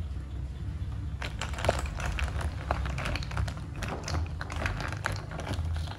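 Apple snail shells clicking and clattering against each other and the aluminium pot as they are stirred with a long wooden stirrer in boiling milk; the irregular taps begin about a second in, over a low steady rumble.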